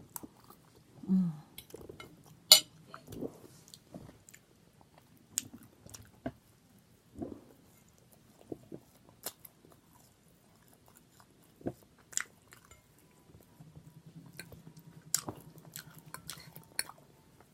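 Close-up eating sounds: a person chewing and smacking on sunny-side-up eggs, sausage and toast, with cutlery clinking on the plate. A sharp clink about two and a half seconds in is the loudest.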